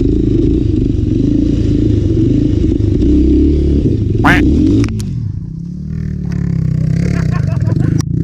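Motorcycle engine running hard, then dropping to a lower, steadier note about five seconds in. A brief high squeak comes just before the drop, and a click near the end.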